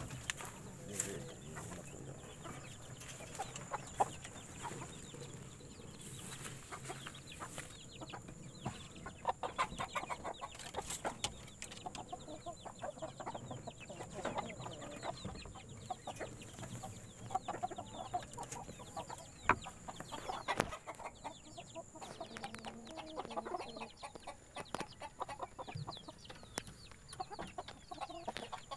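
Chickens clucking in runs of quick, short clucks that come and go, with a few sharp knocks.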